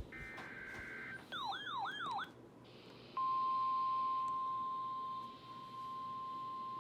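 Emergency Alert System broadcast: the end of a screeching two-tone SAME digital header burst, then a short warbling siren-like sweep of about three wobbles, then about three seconds in the steady 1050 Hz NOAA Weather Radio warning alarm tone starts and holds.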